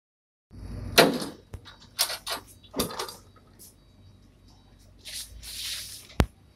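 Large wooden crate being shoved and shifted on a pickup truck's bed: a series of knocks and scrapes about a second apart, then a longer scrape and one sharp knock near the end.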